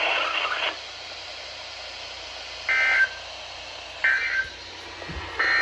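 Three short electronic beeps, about a second and a half apart, over the steady hiss of a weather radio receiver.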